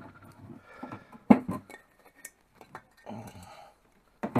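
Light metallic clinks and one sharp knock about a second in, from handling a VW Beetle's aluminium oil cooler and an air blow gun over a plastic bucket while flushing the cooler.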